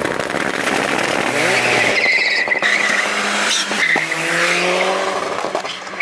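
Turbocharged 1.9-litre Tofaş Doğan four-cylinder accelerating hard from a pull-away: the revs climb, break at a gear change and climb again. A tyre squeal comes about two seconds in.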